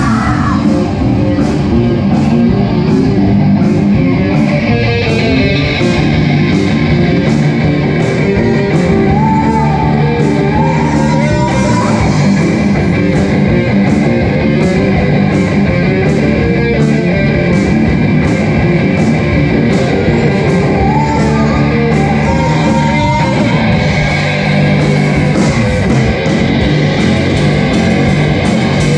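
Live rock band playing loud, with electric guitar, a drum kit keeping a steady beat on the cymbals, and a singer's voice.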